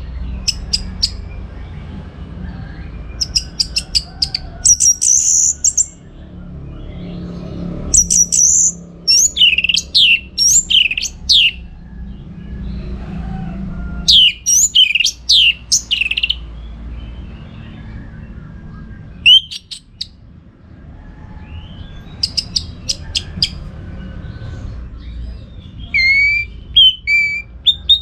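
Orange-headed thrush singing: bursts of rapid clicking notes and quick falling whistled phrases, repeated every few seconds with short pauses, over a steady low background rumble.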